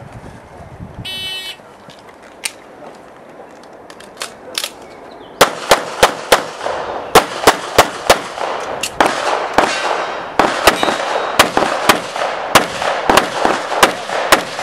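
Electronic shot-timer start beep about a second in, then an IPSC competitor's handgun firing a stage: after a few faint cracks, more than twenty loud pistol shots from about five seconds in to the end, many in quick pairs.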